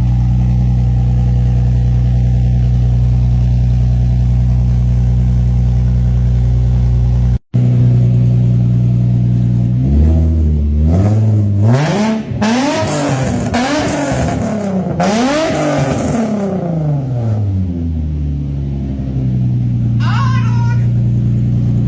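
Infiniti G35 coupe's 3.5-litre V6 on a cold start through a Z1 Motorsports test pipe, Y-pipe and single exhaust with the silencer in, idling steadily. From about ten seconds in it is revved in several quick blips, each rising and falling, then settles back to idle.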